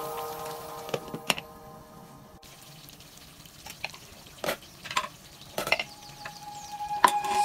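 Thick tomato-based stew of pork ribs simmering in a pot, with scattered pops of bursting bubbles as the sauce reduces.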